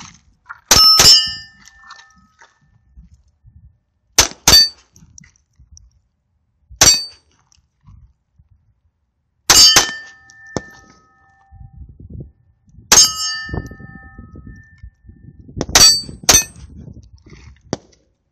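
Sig Mosquito .22 LR pistol firing about ten shots at irregular intervals, some in quick pairs, with steel target plates ringing after several hits.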